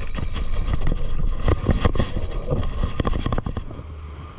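An irregular jumble of knocks and rushing noise, giving way about four seconds in to the low, steady hum of a boat engine.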